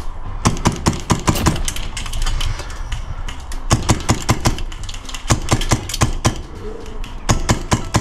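Airsoft guns firing in quick clusters of sharp cracks, about five or six shots a second, each cluster lasting about a second: near the start, about halfway, and near the end.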